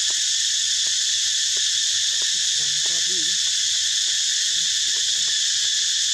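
Steady shrill chorus of insects, a dense high drone with a fine rapid pulse, with scattered faint clicks and a brief faint wavering call about three seconds in.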